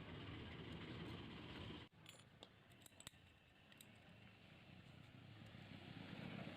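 Near silence with a faint low hum that cuts out just under two seconds in, followed by a few faint, sharp clicks.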